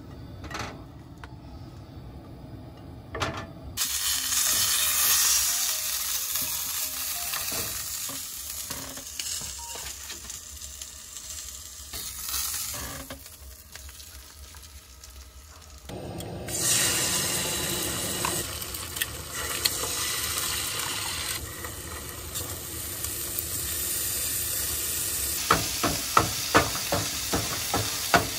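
Sausage and eggs sizzling in a nonstick frying pan on a two-burner camp stove. The sizzle starts a few seconds in, fades, then comes back louder after about 16 s, and near the end a spatula scrapes and taps against the pan while stirring the eggs.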